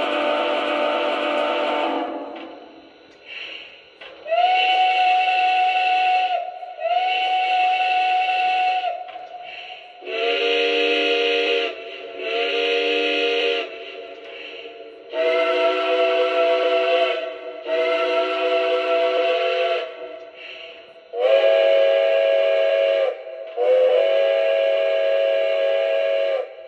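Lionel Legacy Russian Decapod model locomotive's onboard sound system playing recorded steam whistles. A blast fades out about two seconds in. Then four different whistles follow in turn, each blown as two long blasts of about two seconds: first a single-tone whistle, then chime whistles sounding several notes at once.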